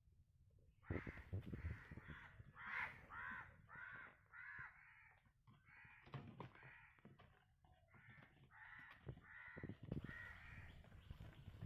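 Crows cawing in a long run of short calls, about two or three a second with a few short pauses. It is faint, over soft low rustling and thumps.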